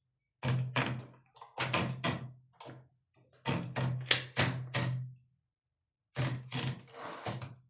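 Sharp clicks and knocks in five short clusters with pauses between them: a 1963 Hermes Baby portable typewriter being handled as its lid is taken off.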